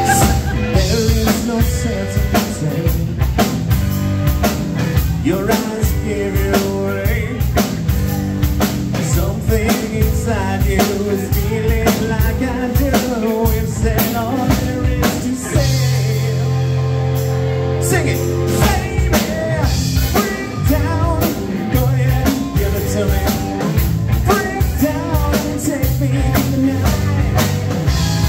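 Live rock band playing a song: electric guitar, bass guitar and drum kit, with a man singing over it.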